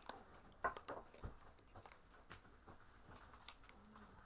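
Faint scattered taps, clicks and rustles of small cardboard firework boxes being handled and assembled by hand, the sharpest tap about two-thirds of a second in, followed by a dull knock.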